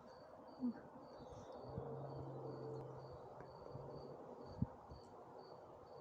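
Faint insect chirping: short high chirps repeating about twice a second over low outdoor background noise. A low hum runs through the middle, and two brief thumps come under a second in and near the end.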